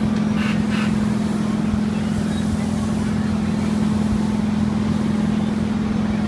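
Steady, loud machine hum at one unchanging pitch from the running machinery of a spinning kiddie helicopter carnival ride.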